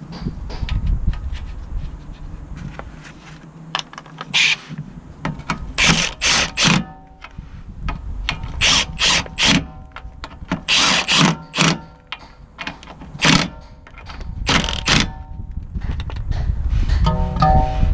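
Mechanical tool work: a power tool run in a dozen or so short bursts, each carrying a motor whine, over a low rumble.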